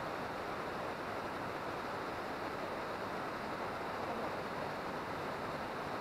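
Waterfall dropping down a cliff into its plunge pool: a steady, even rush of falling water.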